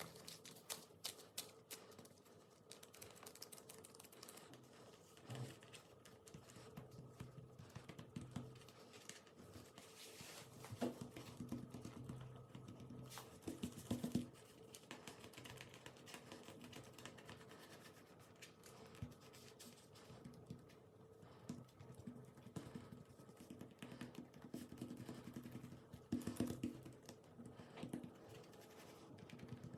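Quiet, irregular small clicks and crackles of slime being handled and pressed by hand, with a few louder pops scattered through.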